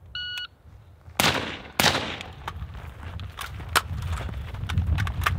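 A shot timer's short start beep, then two suppressed shots from an AR-style rifle about half a second apart, about a second in. After them come the scuffs and thuds of two men running across dry ground and brush.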